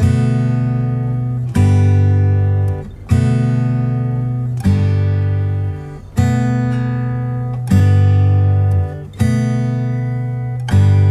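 Background music: a strummed acoustic guitar, one chord about every one and a half seconds, each left to ring and fade.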